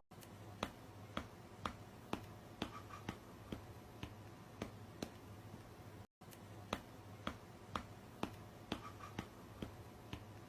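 Faint sharp clicks at an even beat of about two a second over a low steady hum. The sound cuts out for an instant about six seconds in, then the same clicking starts again.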